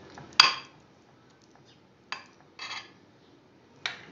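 A metal spoon clinking against a glass baking dish and a bowl as thick custard is spooned out in layers: one sharp clink about half a second in, then a few softer clinks and a short scrape.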